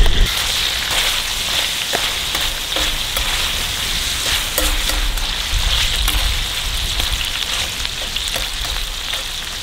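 Food frying, a steady sizzling hiss with scattered small crackles.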